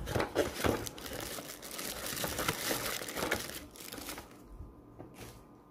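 Clear plastic bag crinkling as a laptop charger wrapped in it is handled and pushed into a cardboard accessory box. The rustling dies down about four seconds in.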